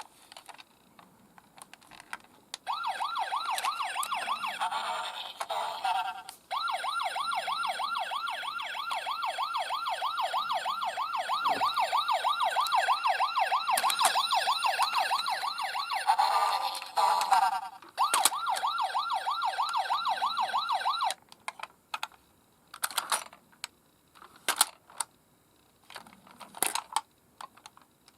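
Electronic siren of a toy emergency-vehicle minicar, a rapid wail that sweeps up and down several times a second. It stops and restarts a couple of times, then gives way to a few sharp plastic clicks and taps near the end.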